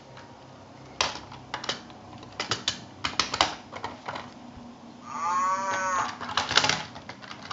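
Hard plastic clacking and knocking as a VTech Go! Go! Smart Animals toy cow figure is handled and set down on the plastic farm playset, then, about five seconds in, the toy's electronic cow moo, one call lasting about a second, with more clacking after it.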